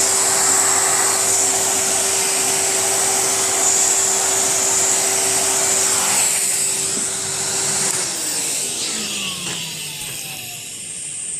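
Numatic Henry cylinder vacuum cleaner running steadily, then switched off about eight seconds in, its motor whine falling in pitch as it winds down.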